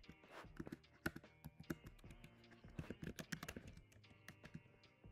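Typing on a computer keyboard: a faint run of quick, irregular keystrokes.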